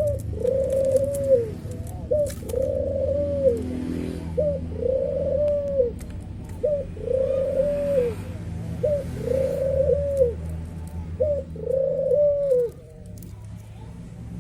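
Male brenggolo dove cooing to call a female: a short note followed by a longer, arched coo, repeated about six times at a steady pace, stopping shortly before the end.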